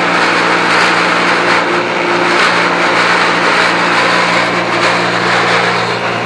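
Pentair UltraTemp pool heat pump running with a loud, steady harsh grinding noise over a constant low hum. The noise comes from low down in the unit, a fault the owner cannot pin down.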